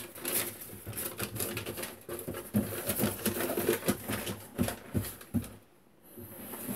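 Handling noises from a cloth snake bag being worked by hand: rustling with many small clicks and a few soft knocks.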